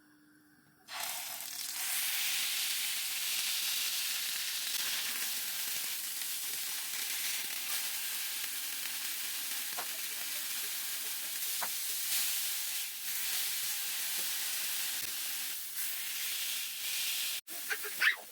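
Beef smash burger patty sizzling on a hot grill: a steady, high hiss of frying fat that starts about a second in. The hiss cuts out briefly near the end, followed by a few short knocks.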